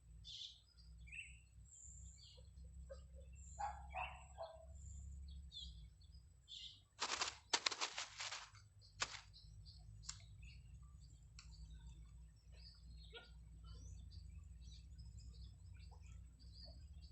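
Small birds chirping in short, scattered calls over a low steady rumble, with a loud cluster of sharp clicks and rustles about seven to nine seconds in.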